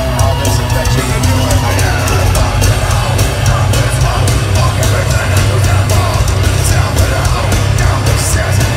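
Heavy metal band playing live and loud, with fast drumming and cymbal hits over a heavy, booming bass end.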